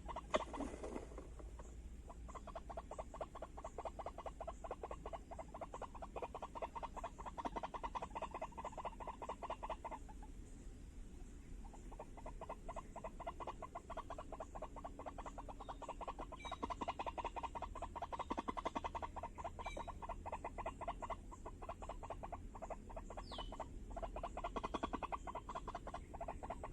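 Rapid, continuous croaking animal calls, many pulses a second, which stop for about two seconds near the middle and then resume. A brief falling whistle comes about 23 seconds in.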